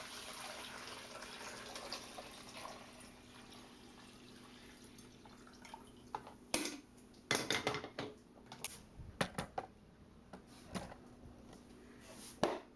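Vinegar-and-water solution being poured into a coffee maker's reservoir, a splashing pour that fades over the first few seconds. It is followed by a series of sharp plastic knocks and clicks as the machine is handled.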